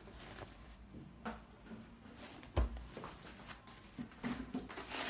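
Soft handling noises of a cloth shoe dust bag being moved over a cardboard shoe box, with one dull thump about two and a half seconds in. Rustling picks up and grows busier near the end.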